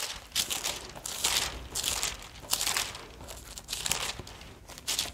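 Thin pages of a Bible being leafed through by hand: a string of short papery rustles as the pages are turned one after another.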